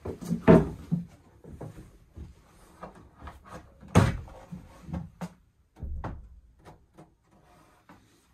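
Wooden knocks and thumps as a storage locker lid under a boat's pilot berth is closed, with heavy thumps about half a second and four seconds in and a run of lighter knocks after them.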